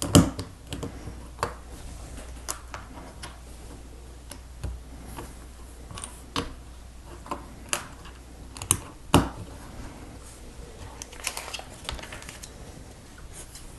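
Plastic Lego bricks clicking as they are handled and pressed together, an irregular run of sharp clicks, the loudest right at the start and about nine seconds in.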